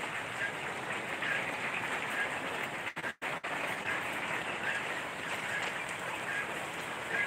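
Steady rain, an even hiss, with the sound cutting out for a moment about three seconds in.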